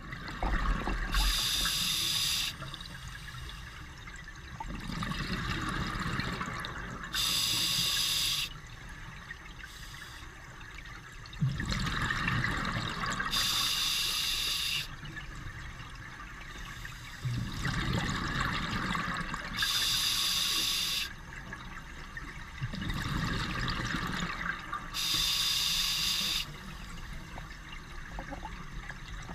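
Scuba diver breathing underwater through an open-circuit regulator: a hissing inhale and a gush of exhaust bubbles, in a slow, even cycle of about one breath every six seconds, five breaths in all.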